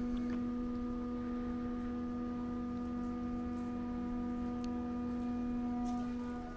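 A steady, sustained musical tone, like a held chord or drone, with several fainter overtones above a strong low note and no fading.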